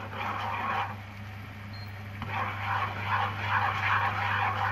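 Sugar and fish sauce boiling hard in a nonstick frying pan, a bubbling sizzle as the mixture reduces to drive off its water. It eases a second in and picks up again about two seconds later, over a steady low hum.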